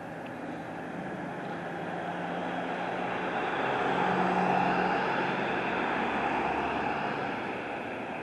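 Motor vehicle engine passing by, its sound swelling to a peak about four seconds in and then fading.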